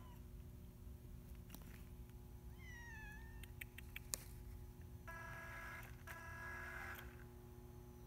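A domestic cat meows once, a short falling call about three seconds in, followed by a few sharp clicks, the loudest a second later. Then comes a steady whine of several tones lasting about two seconds, over a constant low hum.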